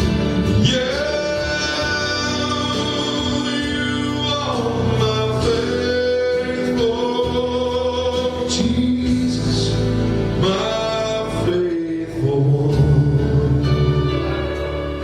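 Gospel song performed live: a voice holds long sung notes with vibrato over instrumental accompaniment.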